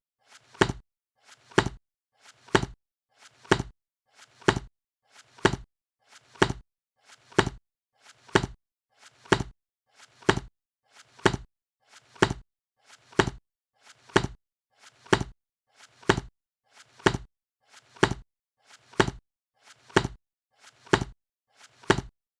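A book being shut over and over, about once a second. Each close is a faint brief sound followed by a sharp clap as the covers meet.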